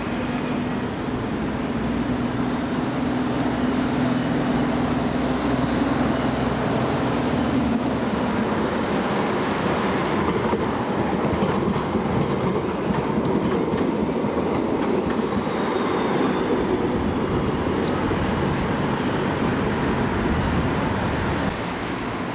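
Bombardier Flexity Classic low-floor tram running past on street track: steady rolling and motor noise mixed with city traffic. A low hum fades out about eight seconds in.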